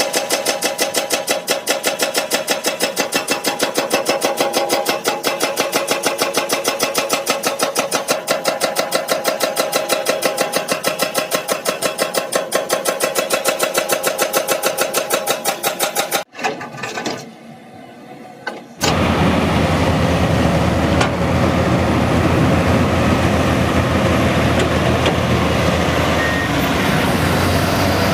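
A rapid, even mechanical clatter of several beats a second that cuts off abruptly about two-thirds through. After a short lull, an excavator's engine runs steadily with a deep rumble.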